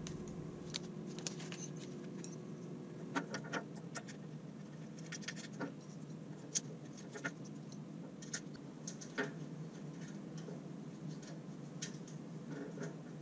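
Scattered light clicks and scratches of small steel Allen screws being handled and set into a metal guide bracket, over a steady low hum.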